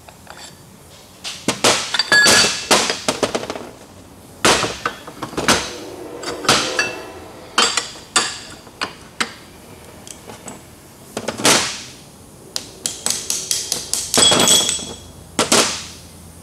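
Steel parts of a bearing puller and a differential pinion knocking and clanking against each other and a metal workbench. The knocks come in irregular clusters, some ringing briefly.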